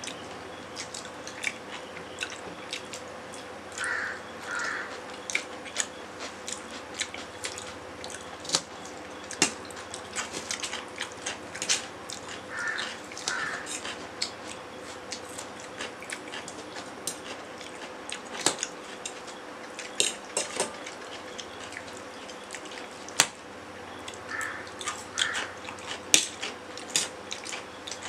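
Close-up eating sounds of two people eating instant noodles: wet chewing and mouth sounds, with frequent sharp clicks and light scrapes of a fork and spoon against steel plates.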